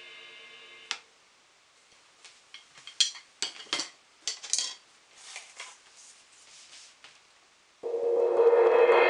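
18-inch Paiste Signature crystal crash cymbal ringing out, then cut off abruptly about a second in. A scatter of light clicks and taps follows, and near the end a mallet roll on the cymbal starts suddenly and holds as a loud, steady wash.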